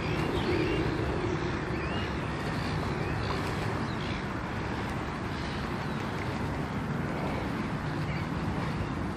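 A steady low motor hum over outdoor background noise, a little louder in the first second or so, with a few faint high chirps in the first few seconds.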